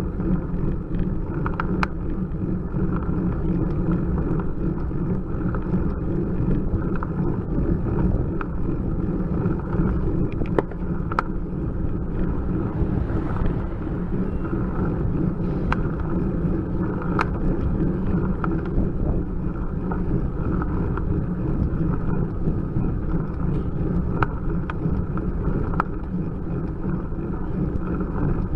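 Steady rumble of wind and road vibration on a handlebar-mounted camera's microphone as a road bike climbs slowly, with scattered sharp clicks. A car passes about halfway through.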